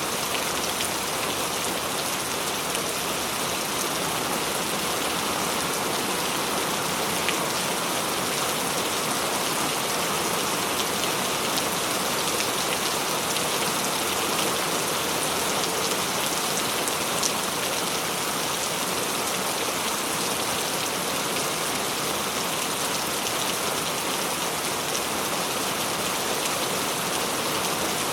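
Steady heavy rain falling on surfaces, an even hiss with scattered individual drop hits.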